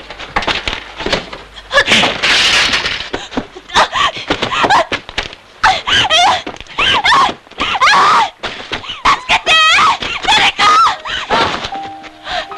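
A woman screaming and crying out in short, high, wavering cries, over and over.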